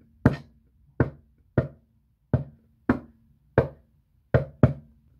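Knocking on a hard surface, eight single knocks about two thirds of a second apart, the last two coming quickly one after the other: a door knock acted out as the 'klop, klop' sound effect of a story.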